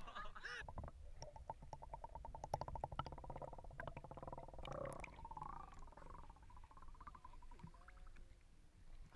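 Muffled sound heard with the camera under the lake's surface: water moving around it, a fast buzzing rattle about a second in, then wavering, gliding tones in the middle.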